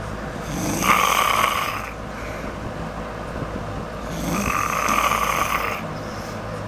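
A sleeping woman snoring: two long snores about three and a half seconds apart, one about a second in and one past the middle.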